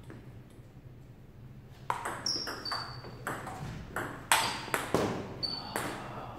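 Table tennis rally in a doubles game: the ball clicks off paddles and the table about twice a second, starting about two seconds in after a quiet pause.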